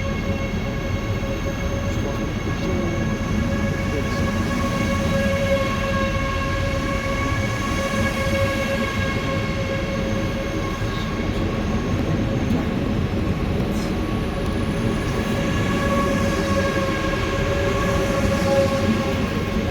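ICE high-speed train at a station platform: a steady whine of several pitched tones over a continuous low rumble.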